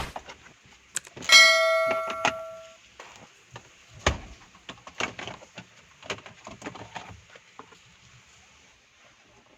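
A single metallic clang about a second in, ringing for about a second and a half as it dies away, followed by scattered light knocks and clicks, the loudest about four seconds in.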